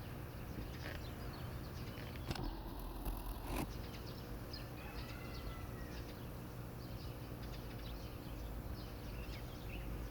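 Outdoor ambience of small birds chirping, with a faint steady low hum underneath. A brief burst of noise lasting about a second comes about two seconds in.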